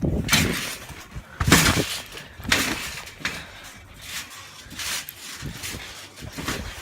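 Trampoline jumping: repeated noisy landings on the trampoline mat, roughly one a second.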